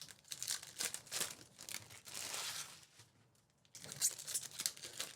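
Trading-card packs being torn open and their foil wrappers crinkled, in irregular bursts with short pauses.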